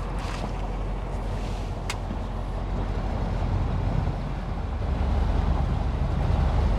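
A boat's outboard engine running steadily at low speed, a little louder from about five seconds in.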